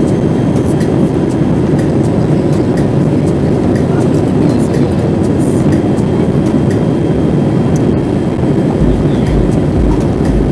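Steady, loud cabin roar of a Boeing 787-8 airliner heard from a window seat beside its GEnx-1B turbofan: engine and airflow noise during the descent. A low, uneven rumble joins in near the end.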